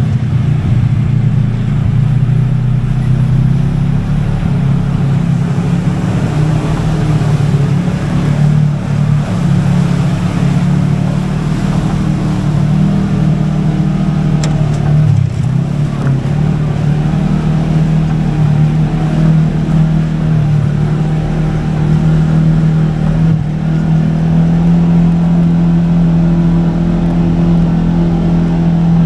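Side-by-side UTV engine running steadily at low revs, close to the microphone, with a brief dip in revs about halfway through and the pitch stepping up slightly near the end.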